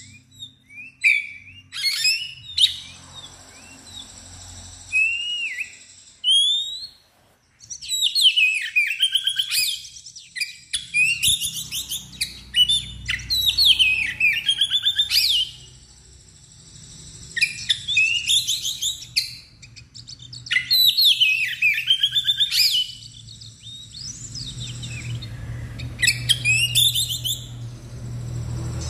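Oriental magpie-robin (kacer) in full song: loud, varied phrases of rapid whistles and chirps. They come in bursts a few seconds long with short pauses between, and there is a brief silence about seven seconds in.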